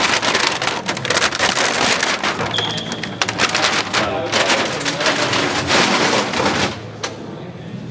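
Thin plastic sublimation transfer film being peeled and crumpled off a freshly heated printed plastic part, crackling and crinkling densely, then easing off near the end.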